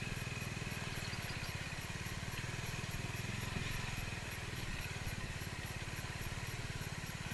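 Motorcycle engine running steadily at low revs, with no revving up or down.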